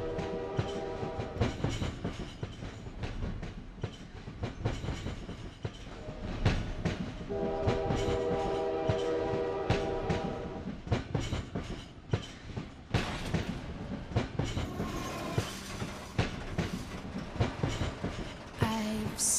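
A train running with its wheels clattering over the rail joints. It sounds two long chord-like warning blasts: one fading out within the first couple of seconds, and another of about three seconds beginning some seven seconds in.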